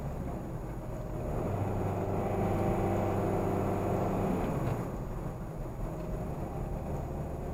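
Road and engine noise inside a moving car's cabin. An engine hum swells for about three seconds in the middle, then fades back to the steady rumble.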